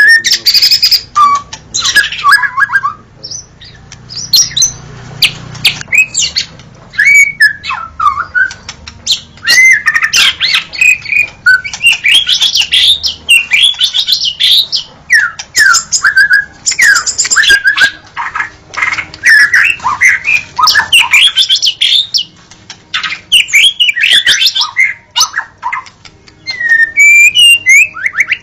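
White-rumped shama (murai batu) singing a long, varied song: quick whistled phrases that bend up and down, mixed with sharp clicking notes, with only short breaks.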